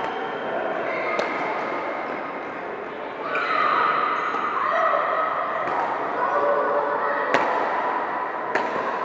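Busy badminton hall: several sharp racket-on-shuttlecock hits, one early and two near the end, over a reverberant din of play on many courts with voices.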